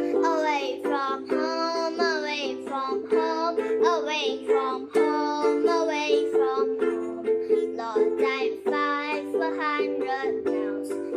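A young girl singing while strumming chords on a ukulele.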